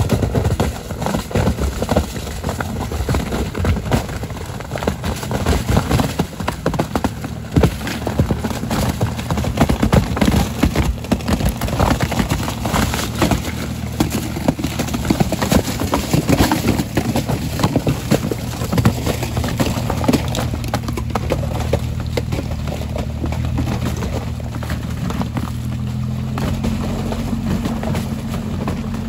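Jeep Wrangler crawling through a frozen creek: the engine runs steadily at low revs while the tyres break the ice, with repeated irregular cracking and crunching of ice slabs. Near the end the cracking dies down and the steady engine hum remains.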